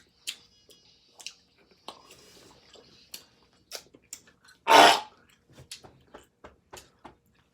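Chewing of sticky Hi-Chew candy and the tearing of its stiff paper wrappers: a scatter of small sharp clicks and crackles. One loud, short, noisy burst comes just under five seconds in.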